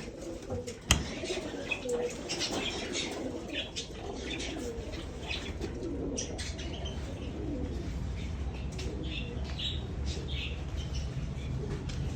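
Pigeons cooing through the first half, with parakeets giving short high chirps throughout and one sharp click about a second in.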